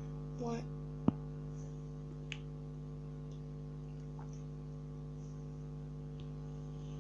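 A steady low hum, with a single sharp click about a second in and a fainter tick a little after two seconds.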